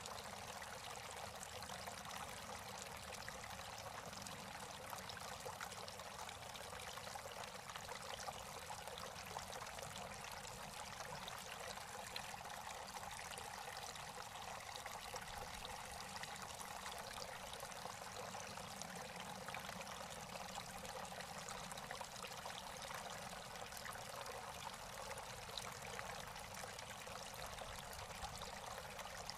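Water spilling from the tiers of a Kenroy Home Tucson three-tier garden fountain and splashing steadily into its bowls.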